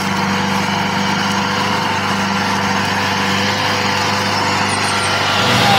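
Small motor running steadily with a constant hum, its pitch holding level, typical of a mini tractor running.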